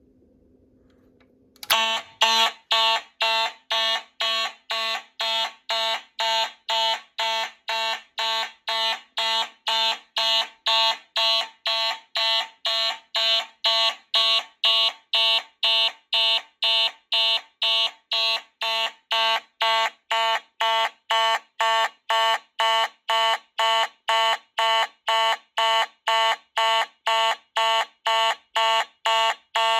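Fire alarm notification appliances sounding, pulsed by a coder module in an even beat of about two pulses a second. They start suddenly about two seconds in and keep going at a steady level.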